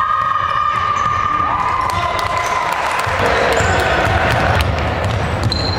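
A basketball dribbling and bouncing on a gym hardwood floor, with sneakers squeaking and a long drawn-out shout in the first second or so, followed by more voices.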